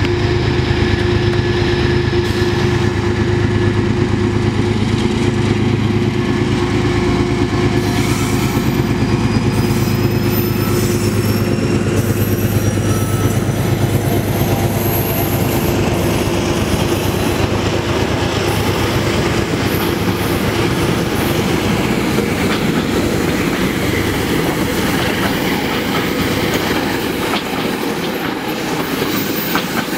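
GE Genesis P32AC-DM diesel locomotive pulling out with its V12 engine running in a steady drone, which fades about halfway through as the Shoreliner coaches roll past. The coach wheels clatter rhythmically over the rail joints.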